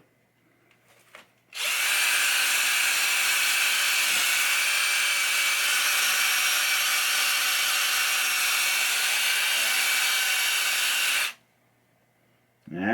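Handheld drill-type power tool spinning a cleaning attachment on a pinball playfield, with a steady motor whine. It starts about a second and a half in, runs evenly for about ten seconds and stops abruptly.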